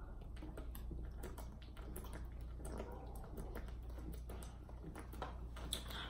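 Quiet gulping and swallowing of Coca-Cola chugged from plastic bottles, with a scatter of small wet clicks throughout.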